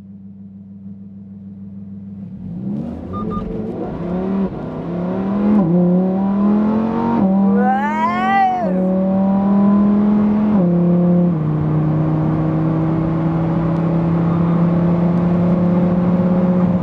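Lamborghini Huracan STO's naturally aspirated V10 heard from inside the cabin, pulling away and accelerating through the gears, its pitch climbing and then dropping at each of several quick upshifts. It grows louder over the first few seconds, with a brief high rise and fall in pitch about eight seconds in.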